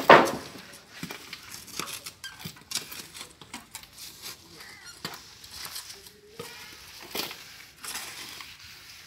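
A short-handled digging tool chopping and scraping into dry, stony soil and scooping it into a plastic basin: irregular crunching strokes, the loudest right at the start and another strong one about seven seconds in.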